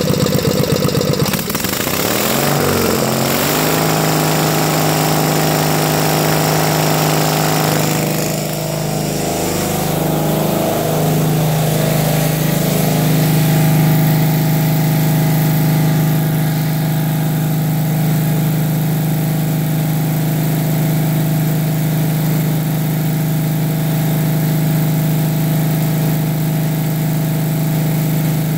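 Onan twin-cylinder engine on an engine-driven welder, just started: its note climbs over the first few seconds as it comes up to speed, wavers for a few seconds, then settles to a steady run.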